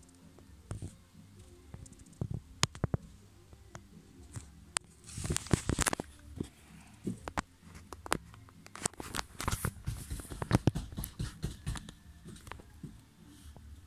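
Irregular sharp clicks and crackles, with a denser rustling burst about five seconds in and another run of clicks about nine to twelve seconds in.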